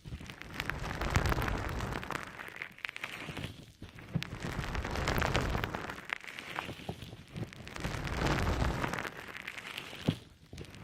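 A damp konjac sponge squeezed and worked close to the microphone, giving wet, crackling squishes in three long swells.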